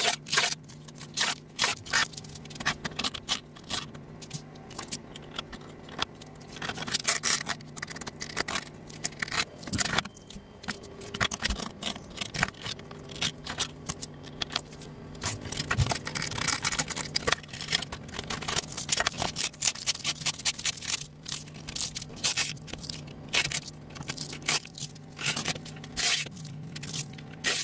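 Masking tape and sticker masks being peeled off spray-painted depron foam, with irregular scraping, crackling and small taps as the pieces are handled. A craft knife picks at tape edges along the way.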